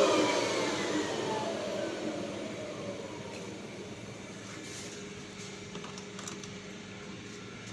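A floor-scrubbing machine's electric motor spinning down after being switched off, its whine falling in pitch and fading over about three seconds. A faint steady hum with a few light clicks remains.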